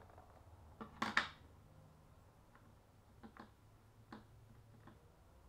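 Plastic ink pad cases being handled, snapped shut and set down on a desk: a cluster of sharp clicks about a second in, then a few lighter clicks and taps.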